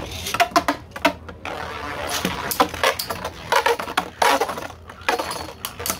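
Two 3D-printed Beyblade spinning tops clashing in a stadium: a rapid, irregular run of sharp plastic clacks and knocks as they collide, over their faint spinning whir.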